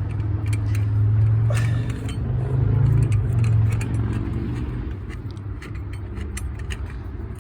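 Light metallic clicks and clinks of a scissor jack being cranked down by its handle. Under them a low engine rumble swells and fades over the first four seconds or so.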